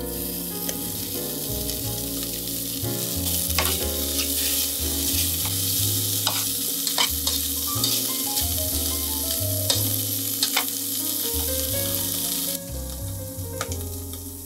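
Diced bacon sizzling as it fries in a stainless-steel pot, with the sharp clicks of metal tongs against the pot now and then as it is stirred; the sizzle cuts off near the end. Background music with low bass notes plays underneath.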